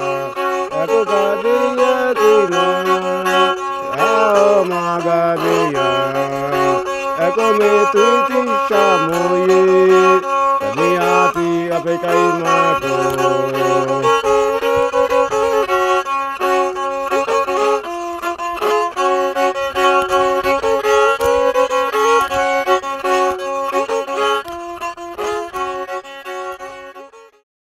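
Bowed gourd-resonator fiddle playing a wavering melody over sustained drone notes. Lower notes step down through the first half, and the music fades out near the end.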